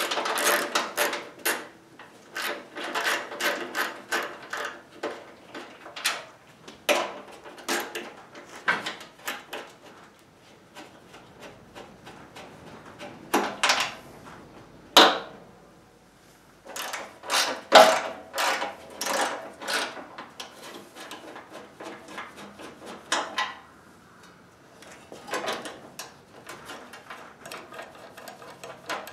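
Hand wrench clicking and clanking against metal while 12 mm bolts are unscrewed from the auger support bracket of a Honda HSS1332 snowblower, in quick runs of clicks with short pauses between them.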